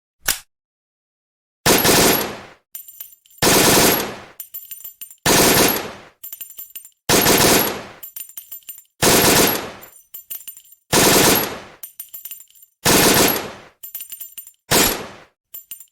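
AK-47 rifle (7.62×39 mm) firing: eight loud shots about two seconds apart, each with a ringing, fading tail, and fainter metallic clicks between them.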